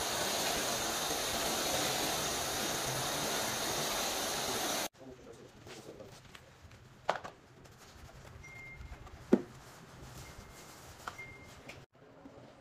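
Air-powered foam spray gun hissing steadily as it blasts cleaning foam over an engine bay, stopping abruptly after about five seconds. Quieter hand work on the foamed engine follows, with a couple of sharp knocks.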